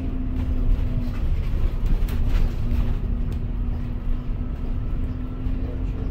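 Inside a moving bus: a steady low rumble of engine and road noise under a constant hum, with a few light rattles about two seconds in.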